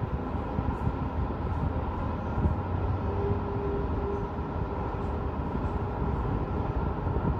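Steady low rumble of road traffic from the streets below a high-rise, a city hum with no single vehicle standing out. A brief steady tone sounds about three seconds in.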